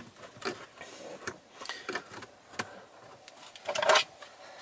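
Plastic clicks and taps of a cabin air filter being pushed and worked into its plastic housing behind a truck's glove box, with a louder scraping knock about four seconds in. The filter will not latch because a retaining tab on the housing is broken.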